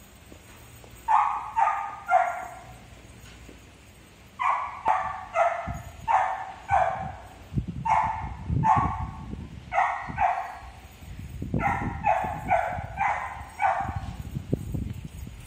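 A dog barking over and over in short single barks: three about a second in, then after a pause a long run of barks, about two a second, that stops near the end.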